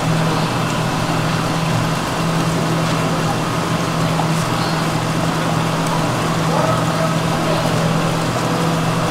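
Steady low machine hum under an even background noise, with faint distant voices.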